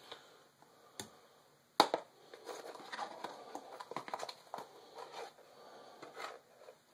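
Handling noises on a kitchen counter: a light click, then a sharper knock, followed by a few seconds of irregular rustling and scraping as a cardboard box of baking soda is picked up and opened.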